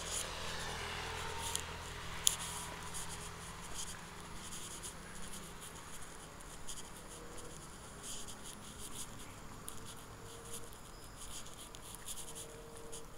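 Faint outdoor ambience with scattered light scratching and clicking from a handheld phone being moved as it pans, one sharper click a little over two seconds in; a low hum fades out about four seconds in.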